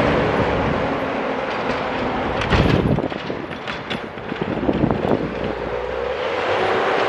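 Snowplow truck going by on a snow-covered road: engine running with a steady hum, and a run of knocks and rattles about two to five seconds in.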